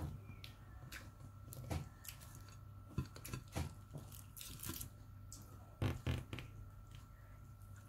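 Eating sounds: hands tearing apart grilled fish and handling food on a plate, with scattered short clicks and knocks and a brief tearing rustle just past the middle, over a steady low hum.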